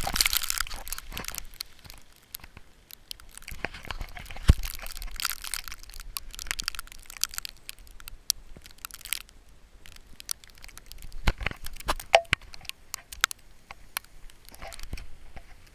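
Irregular crunching and scraping in snow close to the microphone, with many scattered sharp clicks, heaviest in the first two seconds and again around a third of the way through.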